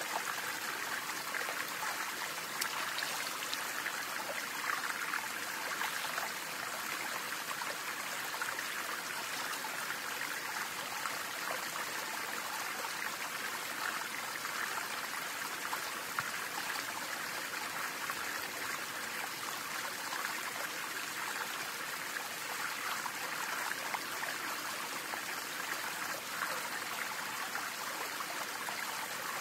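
Stream water flowing steadily.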